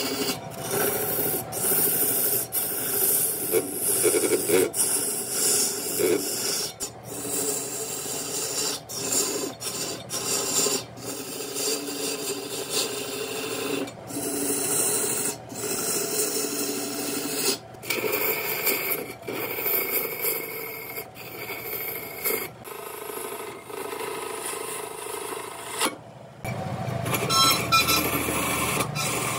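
Woodturning on a wood lathe: a steady scraping hiss of wood being worked against the spinning workpiece, broken by many short gaps. The character changes near the end, with more low rumble.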